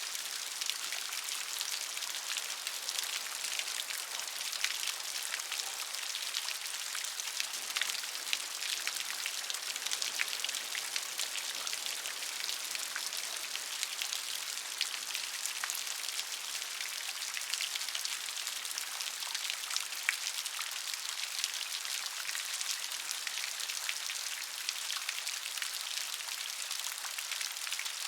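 Steady rain: an even hiss of falling rain with many small, sharp drop ticks, unchanging throughout.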